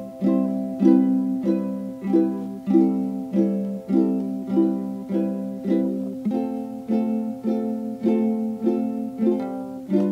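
Background music: an acoustic plucked string instrument strumming chords in a steady, even rhythm, with a change of chord about halfway through.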